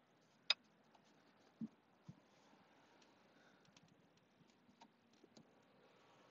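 Faint, sparse handling noises from parts being worked on under a car's dash while a brake-pedal clip is fitted. There is a sharp click about half a second in, a dull knock about a second later and a smaller one after it, then scattered small ticks.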